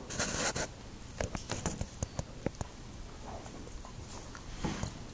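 Dry-erase marker writing on a whiteboard: a short scratchy stroke, then a scattered run of light taps and clicks from about one to two and a half seconds in, and another brief scratch near the end.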